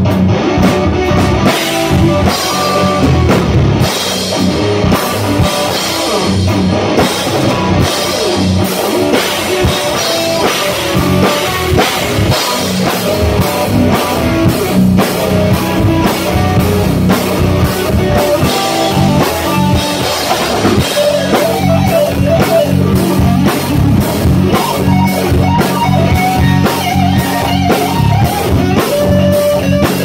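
Live rock band playing loud: electric guitars, electric bass and a drum kit keeping a steady beat.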